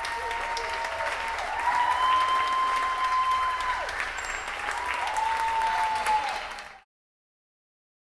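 Audience applauding and cheering, with long held calls over the clapping; it drops away sharply and cuts off near the end.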